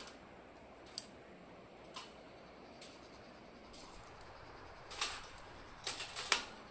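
Scattered light clicks and crackles from a split stick of firewood held into glowing charcoal on a grill grate, with a quick burst of louder crackles near the end.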